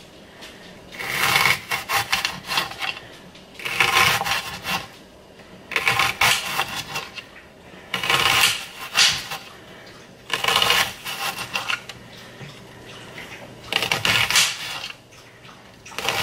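Kitchen knife slicing a red onion on a glass cutting board: the blade clicks and taps sharply against the glass in quick runs, in short bursts about every two seconds.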